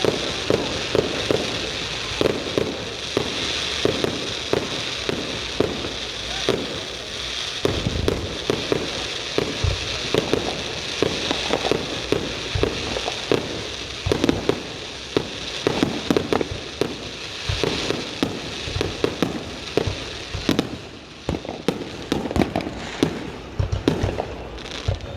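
Fireworks going off in rapid succession: dense sharp pops and crackling throughout, with a few heavier low booms.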